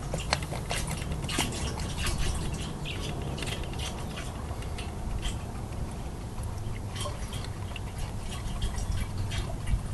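Diesel fuel pouring from a bucket into a tank, with irregular small splashes and drips over a low steady hum.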